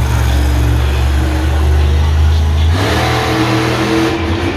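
Arrowhead monster truck's supercharged V8 engine running with a deep rumble, then revving up about three seconds in, its pitch climbing.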